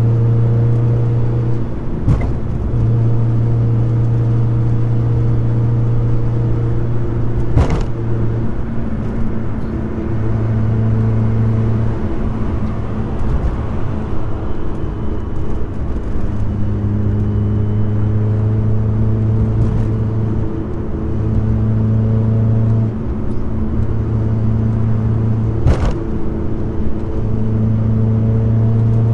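Car engine and road noise while driving, a steady engine drone whose note holds for several seconds at a time and shifts a few times. Three sharp knocks cut through it.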